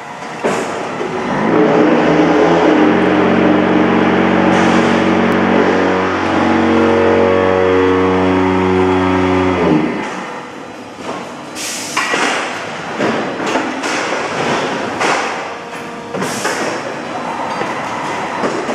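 Concrete-block pallet handling machine running: a steady electric-motor hum that shifts pitch slightly and cuts off about halfway, followed by a series of sharp metallic clanks and knocks from the pallets and steel frame.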